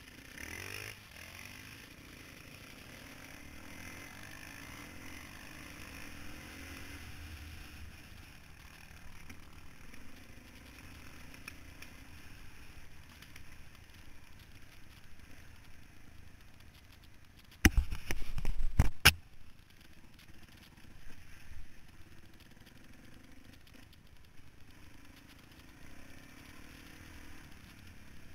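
Dirt bike engine running along a rough trail, heard from a camera mounted on the bike. About two-thirds of the way through there is a loud burst of clattering knocks lasting about a second and a half.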